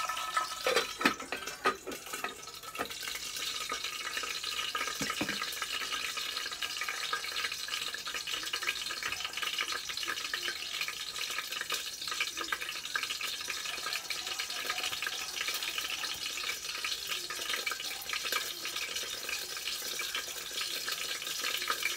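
Onion frying in hot oil in a rice cooker's inner pot: a steady dense sizzle and crackle of spattering oil. A few knocks in the first two seconds as the glass lid goes on.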